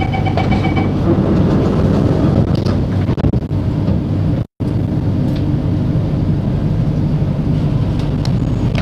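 Steady low hum of an MRT train standing at a platform with its doors open. A short series of beeps sounds in the first second. The sound cuts out completely for a moment about halfway through, and a few faint clicks come near the end as the doors begin to close.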